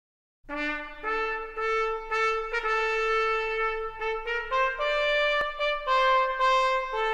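Background music: a melody of held brass notes, changing pitch every half second or so, starting about half a second in.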